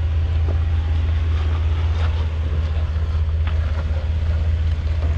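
Jeep Wrangler Rubicon's engine running low and steady as it crawls slowly over rocks, with a few faint knocks of tyres on rock.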